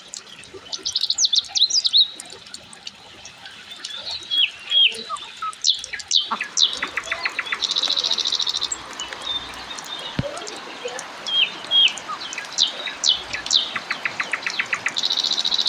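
Wild birds calling: many short chirps and quick whistles, rapid ticking trills, and two brief buzzy trills, over a faint steady hiss.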